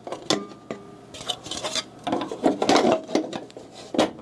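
Plastic cover panel of a Datamax-O'Neil I-Class Mark II label printer being fitted against the printer's metal frame: a series of clicks and knocks with rubbing and rattling in the middle, and a sharp click near the end as it snaps into place.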